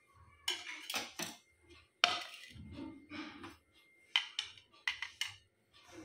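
A ceramic plate and a steel hand grater being set down and handled on a wooden chopping board: a run of irregular knocks and clinks, the sharpest about two seconds in.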